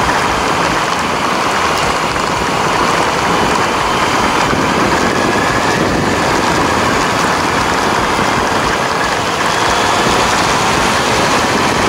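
Honda CB400 Super Four's inline-four engine running steadily while riding, under a constant rush of wind noise on the microphone.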